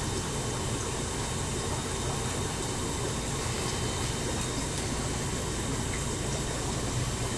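Steady aquarium filter noise: a constant rush of water over a low pump hum.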